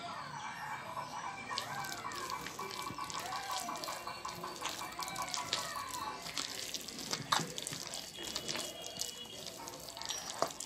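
Hands kneading and squishing a thick, wet batter of ground urad dal and grated ash gourd in a steel bowl: irregular wet squelches and clicks. A fast pulsing tone and rising-and-falling calls sound in the background for about the first six seconds.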